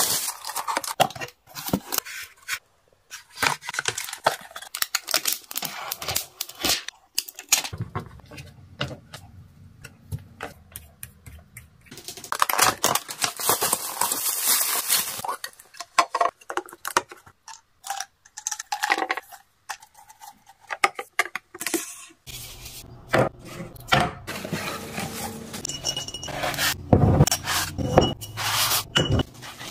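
Household items being handled and unboxed: a run of small plastic clicks and taps, a stretch of crinkling plastic wrap about halfway through, then glass jars clinking against each other near the end.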